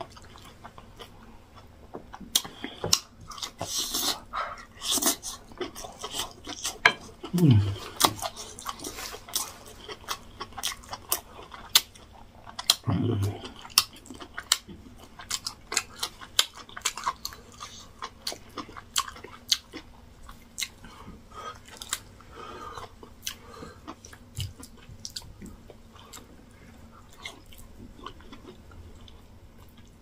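Close-miked wet chewing and lip-smacking of a mouthful of yam fufu and egusi soup, with many quick smacks. Two short hums of enjoyment, each falling in pitch, about 7 and 13 seconds in.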